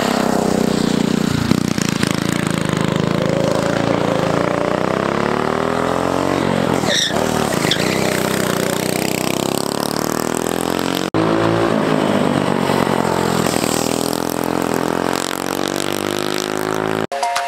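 Tillotson 212 single-cylinder go-kart engine revving hard, its pitch rising and falling repeatedly as the kart accelerates and backs off, with two brief sharp drop-outs in the sound.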